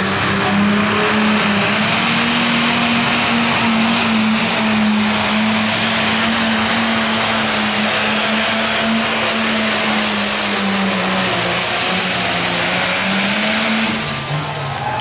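Ford 9600 pulling tractor's six-cylinder diesel engine running wide open under full load as it drags a weight-transfer sled. The engine note holds steady, sags slightly under load late in the run, then drops off about a second before the end as the pull stops.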